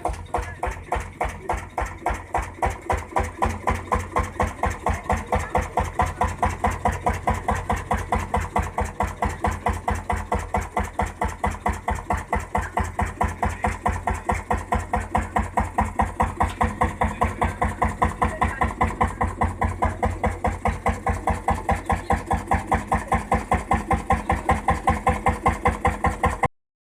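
Vintage tractor engine running at a slow, steady beat, with even exhaust pulses about five a second; it cuts off abruptly near the end.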